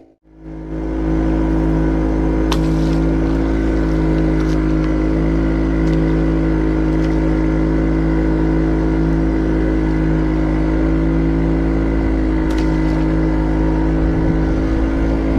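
Small fishing boat's engine running at a steady speed: an even, pitched hum over a low rumble, with a couple of faint clicks.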